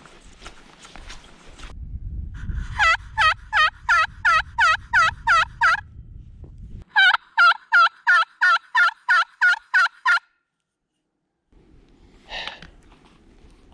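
Hen turkey yelps from a hunter's turkey call: two runs of about ten yelps each, about five a second, with a short pause between them.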